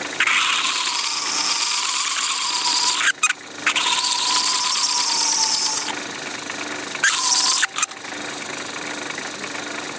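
Chisel-ended knife blade held against a plastic workpiece spinning in a metal lathe, screeching high as it scrapes and chatters on the surface. There are three screeches, the first two long and the third short about seven seconds in, over the steady running of the lathe.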